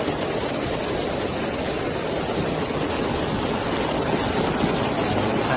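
Heavy rain and fast-flowing floodwater: a steady rushing noise with no breaks.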